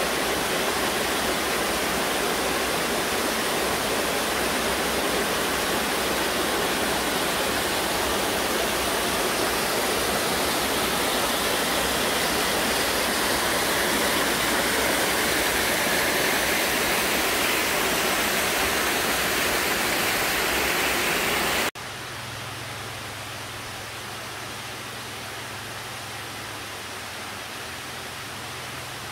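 Mountain brook cascading over rock ledges in small waterfalls: a loud, steady rush of water. About three-quarters of the way through it cuts to a quieter, more distant rush of the same stream.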